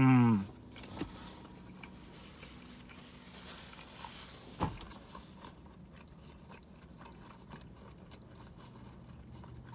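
A man's short, falling "mmm" of enjoyment right at the start, then quiet chewing of a bacon, egg and cheese croissant sandwich, with a few small mouth clicks and one sharper click near the middle.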